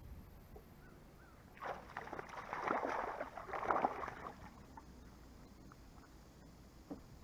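A hooked fish thrashing at the water's surface beside the boat: a burst of splashing about three seconds long, starting a second and a half in.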